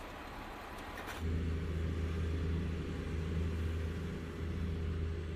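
An even hiss, then about a second in an abrupt switch to a steady, low engine rumble of a road vehicle.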